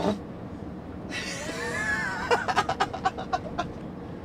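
A voice giving a gliding whoop about a second in, then a quick run of short laugh-like pulses, over the low steady noise of a truck cab on the move.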